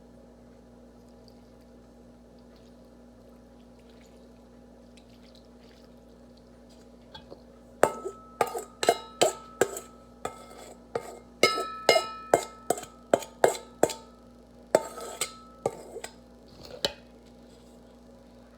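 Quiet for the first several seconds, then a spoon knocking and clinking against a bowl as the dressed vegetable shell salad is stirred: a quick, irregular run of sharp knocks, some ringing briefly, that stops shortly before the end.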